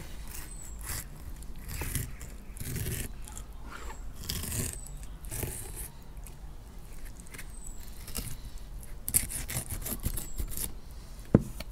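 Fillet knife scraping through a raw cod's flesh along its back during filleting, in short repeated strokes against the bones and the plastic cutting board. Two sharp clicks near the end.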